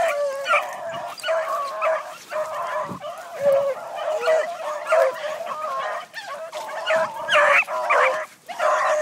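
A pack of beagles in full cry: several hounds baying and yelping at once in an overlapping, continuous chorus, the voice a pack gives while running a scent line.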